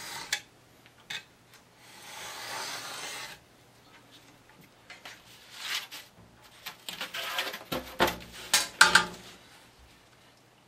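A knife is drawn along a ruler through a board with about two seconds of steady scratchy hiss. Then come scrapes, rustles and a few sharp knocks as the ruler and board pieces are handled, loudest near the end.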